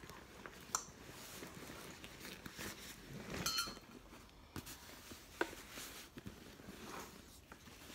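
Handling noise as a packed fabric organiser insert is pulled out of a leather diaper bag: rustling of cloth and leather with soft knocks and small clicks, and a short scraping rustle about three and a half seconds in.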